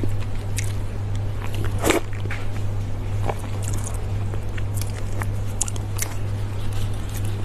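Close-miked eating: wet chewing and biting with scattered crunches and lip smacks, one louder crunch about two seconds in, over a steady low hum.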